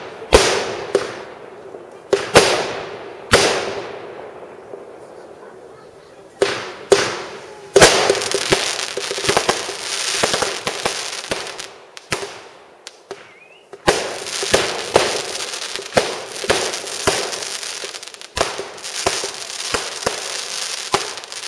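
Fireworks going off: a run of sharp bangs, each trailing off in a fading crackle, then two long stretches of dense crackling laced with more bangs, starting about eight seconds in and again at about fourteen seconds.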